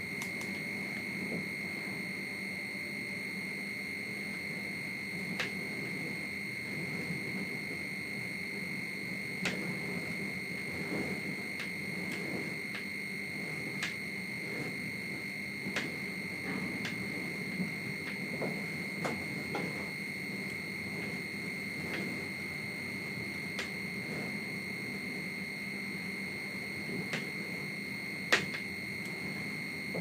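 Crane's high-wind alarm buzzer sounding one steady high-pitched tone, the signal that the wind is above 21 m/s. Beneath it runs a low rumble, with scattered sharp clicks, the loudest near the end.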